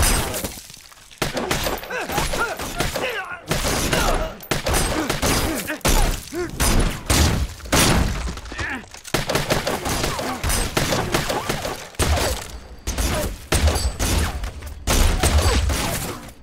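Movie gunfight sound mix: repeated bursts of assault-rifle fire with impacts, thuds and things breaking, and men's shouts and grunts.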